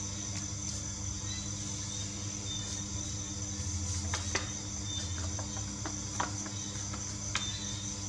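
A sheet of origami paper being handled and refolded, giving a few short, sharp paper crackles in the second half, over a steady high-pitched whine and a low hum.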